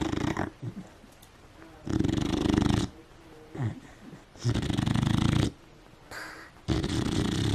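Beagle snoring in her sleep: a loud snore roughly every two and a half seconds, each about a second long, with fainter breathing in between.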